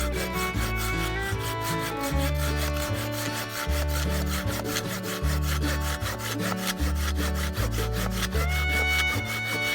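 Background music with a steady quick beat, a stepping bass line and held melody notes.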